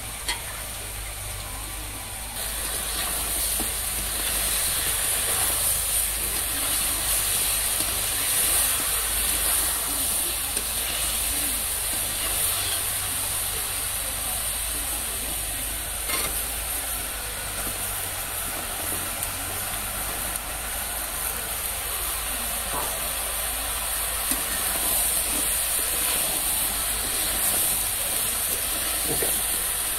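Chicken and spices sizzling in a hot iron kadhai over a wood fire: a steady high hiss that starts about two seconds in, after a moment of water sloshing as vegetables are washed in a pot, with a few faint clicks of the ladle or fire.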